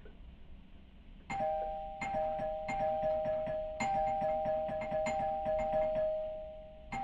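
Two-tone doorbell chime rung over and over from about a second in. Each new press re-strikes the high and low notes before they can fade: the doorbell button is being pressed repeatedly.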